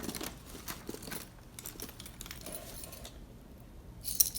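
Small hard objects clicking and rattling as a purse's contents are rummaged through by hand, with a short jingle of metal keys near the end.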